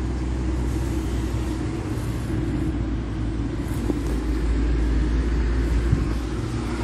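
Steady low rumble of a car driving, engine and road noise heard from inside the cabin, with a single light knock about six seconds in.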